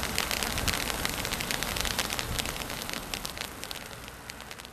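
Ground fountain firework spraying sparks: a dense hiss full of rapid sharp crackles, fading away over the last second or so.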